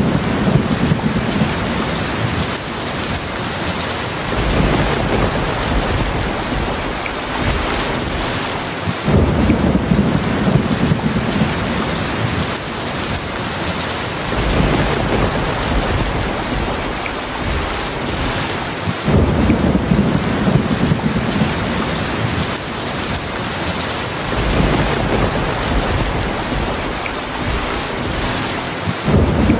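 Heavy rain falling steadily, with low rolls of thunder that swell and fade about every five seconds.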